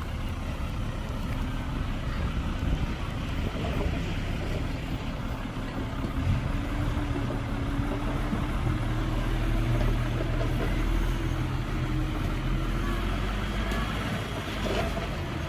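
Heavy diesel earthmoving machinery running steadily, a deep engine rumble whose pitch rises a little through the middle.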